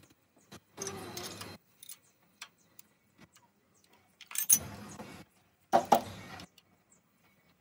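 Three short bursts of metallic clatter and jingling, the last two opening with a sharp clink, from metal parts being handled.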